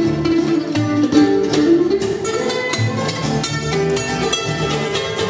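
Acoustic bluegrass band playing an instrumental passage: fast picked mandolin and guitar over bowed fiddle and a walking upright bass.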